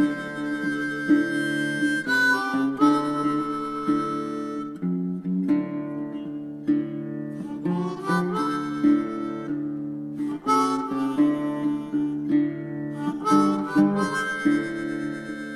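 Background music: a harmonica playing held notes over acoustic guitar, in a bluesy style.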